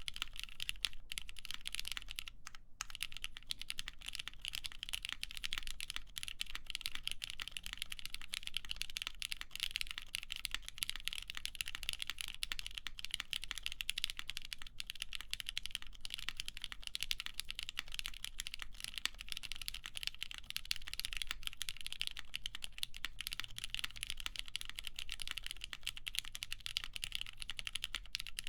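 Steady fast typing on an Ion Rogue custom mechanical keyboard with lubed Cherry MX Black linear switches, an aluminum plate and GMK keycaps: a dense run of keystrokes with a brief pause about two and a half seconds in.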